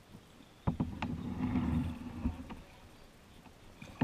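Kayak paddle knocking sharply against the kayak's hull a few times, then a paddle stroke swishing and sloshing through the water close by for about a second and a half; one more knock near the end.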